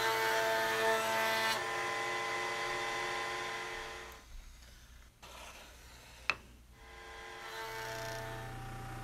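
Table-mounted router running with a steady whine as it shapes a wooden handle. The whine drops away about four seconds in, a sharp click comes about two seconds later, and the whine returns more softly near the end.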